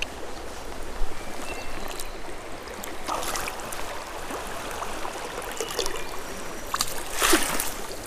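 A small smallmouth bass splashing as it is scooped into a landing net, over a steady wash of running creek water. There are two splashy swells, one about three seconds in and a louder one about seven seconds in as the net comes up with the fish.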